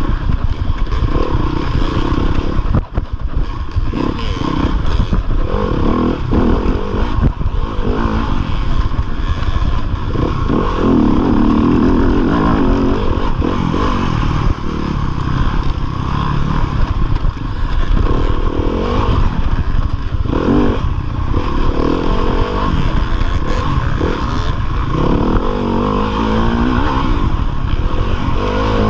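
2015 Yamaha YZ250FX's 250cc four-stroke single-cylinder engine revving up and down repeatedly under hard load while racing off-road, heard from the rider's chest, with clattering from the bike over rough ground.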